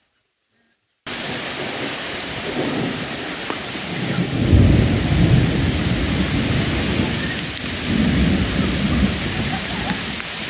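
Heavy rain cuts in suddenly about a second in, with thunder rolling twice over it: a louder rumble near the middle and a second one a few seconds later.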